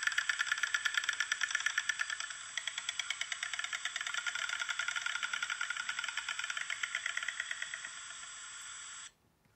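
Yellow-billed stork clattering its bill: a fast, steady rattle of clacks that stops suddenly about nine seconds in. It plays through laptop speakers, thin with no low end.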